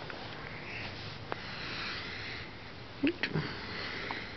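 Broody female cockatiel hissing softly for about two seconds, the defensive hiss of a hen guarding her eggs. A few light clicks and two short low sounds follow about three seconds in.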